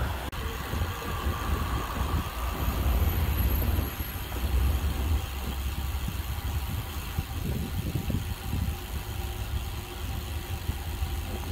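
Low, uneven rumble of wind and road noise picked up while riding a bicycle through city streets.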